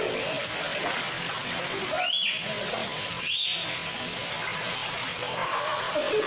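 Pool water splashing as children swim and play, a steady wash of noise. Two short high-pitched children's shrieks come about two and three seconds in.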